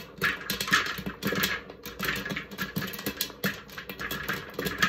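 Popcorn kernels popping in oil in an electric popcorn popper: many quick, irregular pops.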